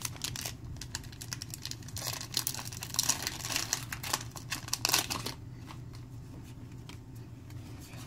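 Crinkling and rustling of Pokémon trading card packs and cards being handled: a busy run of small crackles for the first five seconds or so, then quieter, over a low steady hum.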